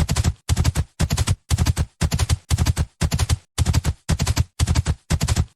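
A horse galloping on cobblestones: hooves strike in quick clusters of three or four, about two strides a second, in an even rhythm.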